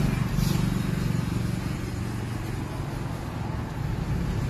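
A slip-on exhaust muffler is twisted and worked loose on its brass link pipe by hand, with a brief high metal scrape about half a second in. Under it runs a steady low drone that sounds like an engine.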